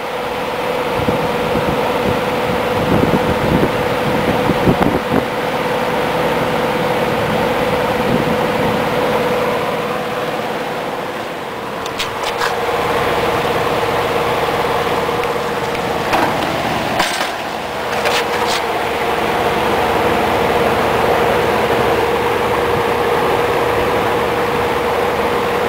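Vintage all-metal Penneys by Lakewood 20-inch box fan running on its high speed: a steady rush of air with a steady motor hum. A few brief clicks come about halfway through and again a little later.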